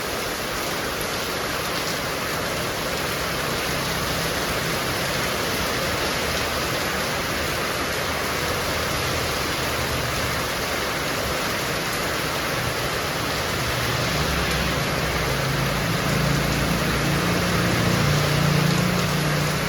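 Heavy rain falling steadily, an even dense hiss. A low rumble swells over the last few seconds and makes the sound a little louder near the end.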